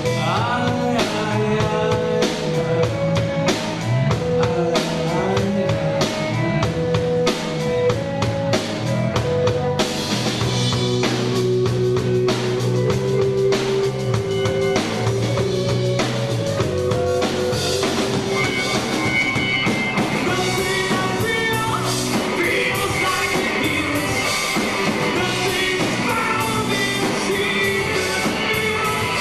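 A rock band playing live: electric guitar, bass guitar and drum kit with a male singer, the sound getting fuller about a third of the way in.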